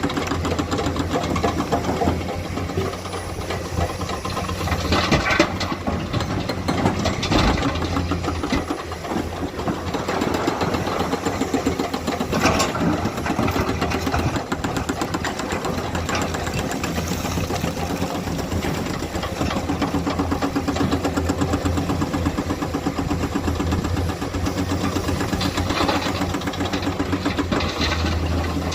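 Komatsu hydraulic excavator's diesel engine running steadily, with a few sharp clanks scattered through.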